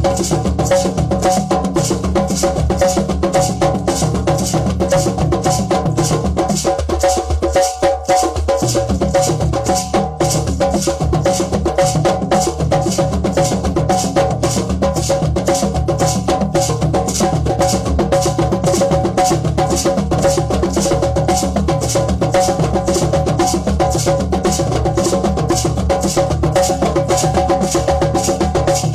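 Drum circle of many hand drums playing a fast, steady groove together, with a steady held tone sounding over it. The deep drums drop out briefly about seven seconds in, then come back.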